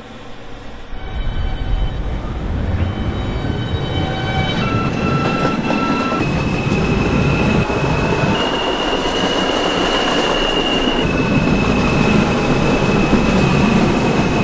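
New York City subway train running through a tunnel between stations, heard from inside the car. A loud, steady rumble of wheels on rail builds over the first two seconds, and high squealing tones from the wheels hold steady, shifting pitch now and then.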